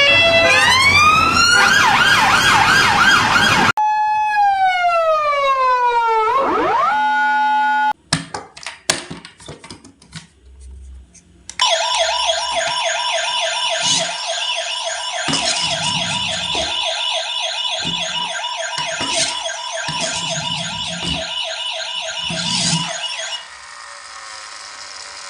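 Police siren: a slow rising and falling wail for about eight seconds, then a few clicks, then a fast warbling yelp for about twelve seconds that drops away near the end.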